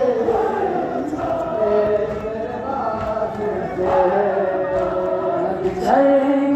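A crowd of men chanting a noha, a Muharram mourning lament, together in long sung lines.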